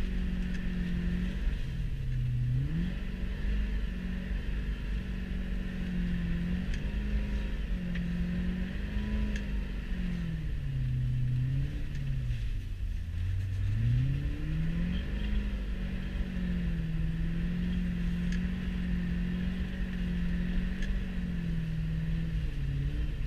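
Straight-piped C4 Corvette V8 heard from inside the cabin, its exhaust note rising and falling with the throttle. The revs drop sharply about two seconds in and again around halfway, then climb back and hold steady.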